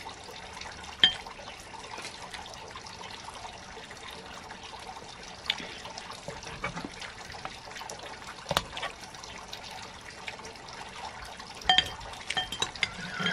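A garden water fountain trickling steadily, with a metal fork and spoon clinking sharply against a ceramic bowl about four times.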